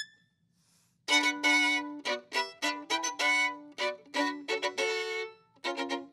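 Solo violin playing. After a pause of about a second, a new phrase begins with a string of separate, strongly bowed notes.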